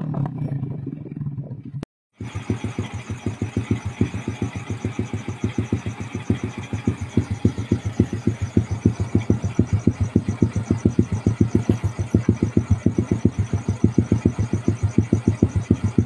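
A Neptune 125 motorcycle engine idling through an aftermarket exhaust silencer, with a steady, even exhaust beat of about five or six pulses a second. It comes in after a short silent cut about two seconds in, which follows the fading end of another engine's sound.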